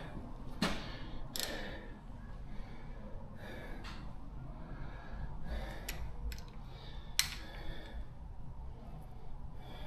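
A person breathing hard while straining on a very tight reverse-threaded timing sprocket bolt, with a few sharp metallic clicks of the spanner, the first two about a second apart near the start and another about seven seconds in.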